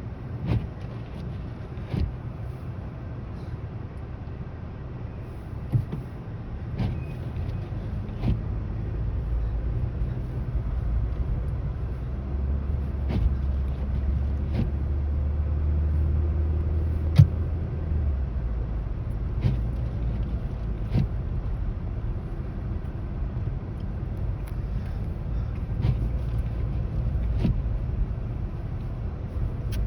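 Car interior road noise while driving on snowy roads: a steady low rumble of engine and tyres that swells for a few seconds mid-way, with scattered short knocks and clicks.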